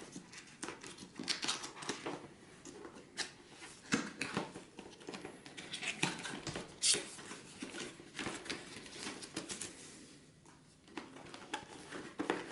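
Cardboard product box being handled and opened by hand: irregular taps, clicks, scrapes and rustles of the packaging.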